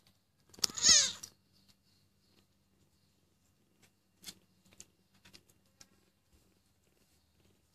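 A cat's single short meow about a second in, its pitch wavering, followed by faint scattered rustles and small taps of the kittens shuffling about.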